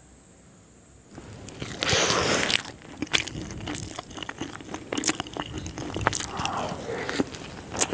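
Close-miked eating of schezwan noodles. After a second of faint hiss, a loud noisy bite about two seconds in is followed by steady chewing with many sharp wet clicks and crackles.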